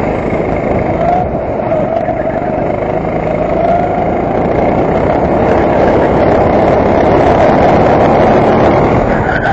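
Go-kart engine running under load, heard from a camera mounted on the kart. Its note wavers through a corner, then climbs and gets a little louder over the second half as the kart speeds up onto a straight.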